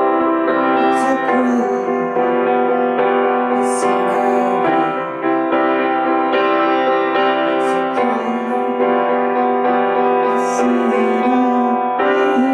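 Keyboard-led music from a song's instrumental passage: sustained piano chords changing every second or so, with a light high shimmer about every three seconds.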